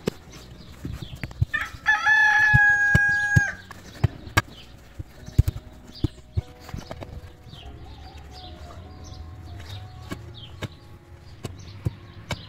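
A rooster crows once, the loudest sound, starting about a second and a half in and lasting nearly two seconds. Around it come scattered sharp knocks and scrapes of a metal digging bar striking soil and a big stone at the bottom of a pit, with small birds chirping faintly.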